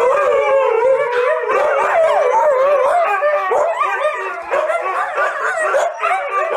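Two huskies howling and yowling at each other, their voices overlapping and wavering up and down in pitch without a break.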